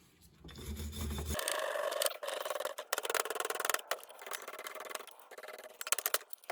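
Hand brush scrubbing a grimy metal vise part, rapid back-and-forth scratchy strokes that start about a second and a half in, after some handling noise.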